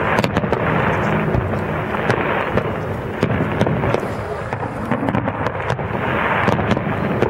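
Aerial firework shells bursting overhead, many sharp bangs at irregular intervals.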